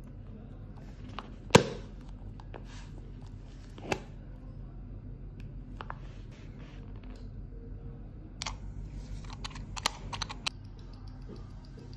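Small sharp clicks and taps of steel tweezers, a metal grease tin and a watch case being handled on a workbench, over a low steady hum. The sharpest click comes about one and a half seconds in, and a quick run of light clicks near the end.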